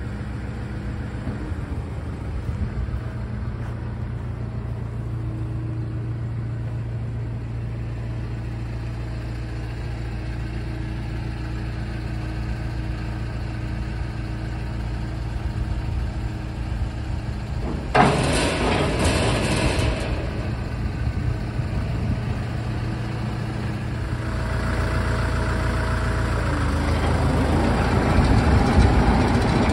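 Tractor engine idling steadily, getting louder over the last few seconds. A brief burst of hiss comes about two-thirds of the way in.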